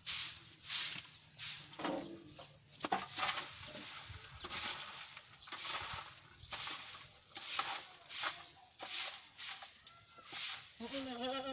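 Soft grass broom (walis tambo) sweeping straw and dirt across a loft floor in repeated swishing strokes, roughly one to two a second. Near the end comes a short, wavering animal call.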